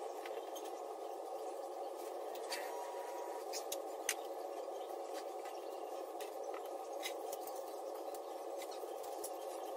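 Small items clicking and tapping as bottles and tools are picked up and set down on a nail desk during cleaning, a few sharp clicks scattered over a steady background hum.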